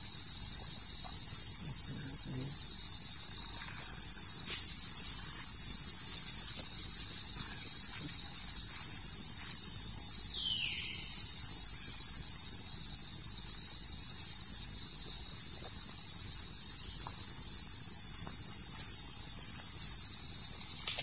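Steady, high-pitched chorus of forest insects, unbroken throughout, with one short falling call about ten seconds in.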